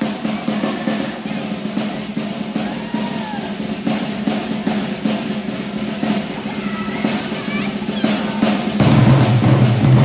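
Marching band drumline playing a rapid snare-drum cadence with bass drums. About nine seconds in, the full band comes in with louder, deeper sustained notes.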